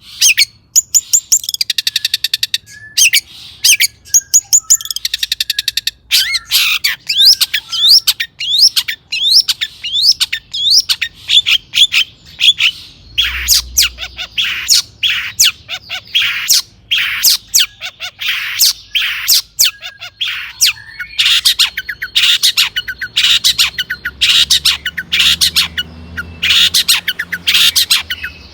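Long-tailed shrike (cendet) singing without a break: a fast, dense run of harsh scratchy notes, quick whistled sweeps and buzzy trills, in a song full of phrases mimicked from other birds.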